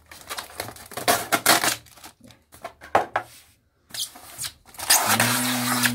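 Clear packing tape on a styrofoam shipping box being scraped at with a cutter and peeled off: a run of short scrapes and rustles, then about five seconds in a longer, louder tearing sound with a steady low squeal.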